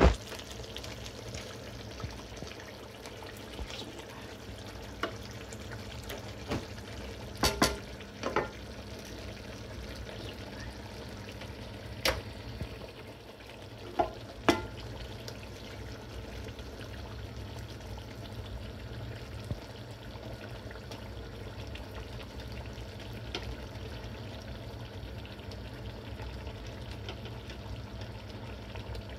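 Curry gravy simmering in a large stainless steel pot as chitol fish steaks are laid in: a steady bubbling hiss, with several sharp clicks and knocks against the pot in the first half.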